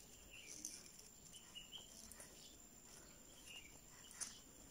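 Near silence: faint room tone with a few soft ticks, a sharper click about four seconds in, and some faint high chirps.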